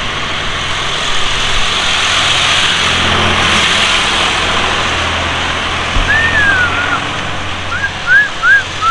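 Steady road-traffic noise that swells slightly as a vehicle passes, with a run of short, high whistled chirps near the end.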